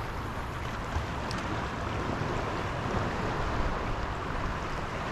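Steady wind noise on the microphone over the wash of shallow sea water.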